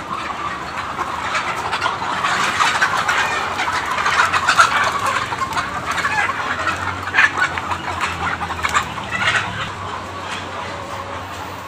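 Large flock of laying hens clucking, many calls overlapping into a continuous chatter.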